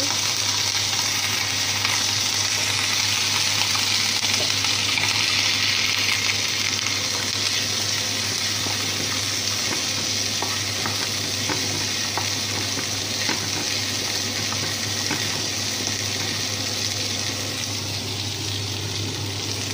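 Green chillies and garlic cloves sizzling in hot mustard oil in a frying pan: a steady, loud hiss, with light scrapes and ticks as a wooden spatula stirs them. A steady low hum runs underneath.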